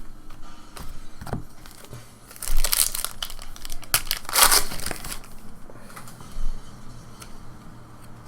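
Foil wrapper of a trading-card pack crinkling and tearing open, in two loud rustling bursts about two and a half and four and a half seconds in, with a few light clicks and rustles of cards being handled in between.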